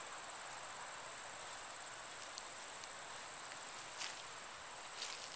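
Field insects trilling steadily on one high, finely pulsing note, with a couple of brief soft rustles or ticks near the end.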